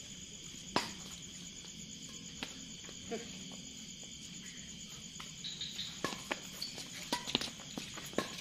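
Crickets chirring steadily, with an occasional sharp click. From about six seconds in, a quick run of sharp knocks as a badminton rally gets going: racket strikes on the shuttlecock and players' footsteps on the court.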